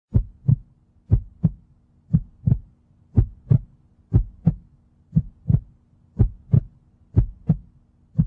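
Heartbeat sound effect: pairs of deep thumps, lub-dub, repeating about once a second over a faint steady hum.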